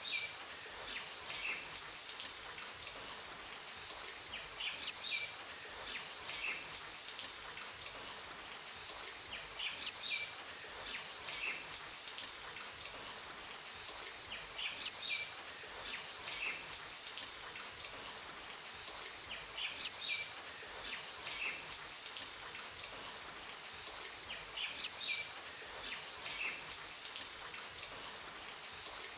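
Nature-ambience background track: short, high bird chirps recur about every five seconds over a steady hiss.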